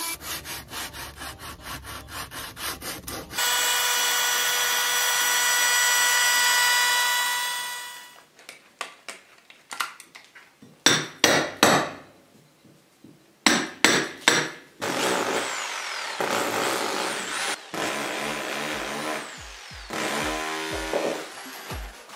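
Oscillating multi-tool plunge-cutting a board with a rapid buzz, then running on steadily for a few seconds. After that come a run of sharp hammer blows on a chisel cutting a channel into a plaster wall, then irregular scraping noise.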